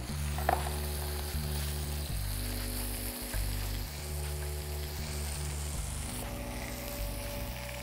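Chicken escalopes sizzling steadily in hot oil in a frying pan as they are lightly seared, with a short knock about half a second in.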